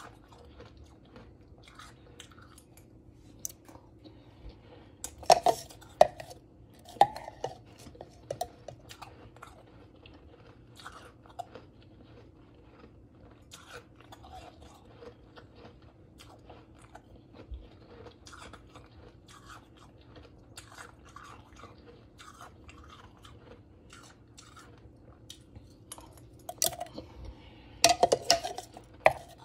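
Close-up chewing and crunching of powdery crushed ice, a long run of small crisp crunches with a few louder bursts. Near the end, a metal spoon clinks and scrapes in the plastic blender cup.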